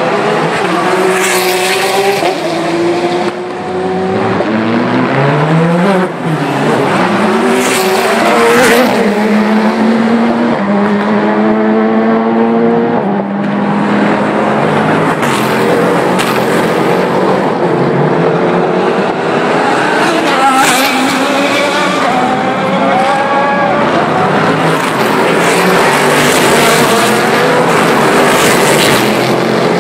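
Le Mans sports-prototype and GT race cars passing one after another, several engines overlapping. Their notes climb in pitch as they accelerate through the gears and drop on the downshifts. Each car going by close brings a brief loud rush of noise.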